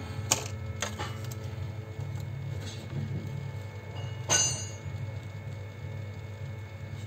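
Small metal tools clicking on a repair bench, twice near the start and once louder about four seconds in with a short metallic ring, over a steady low hum.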